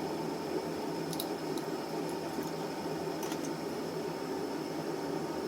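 Steady background hum and hiss with a faint high whine over it, and a few faint light clicks about a second in and again about three seconds in, typical of small metal carburetor parts being handled.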